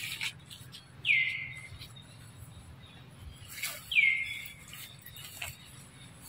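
Two loud, high-pitched animal calls about three seconds apart, each sliding down in pitch and then holding for about half a second, with faint rustling between them.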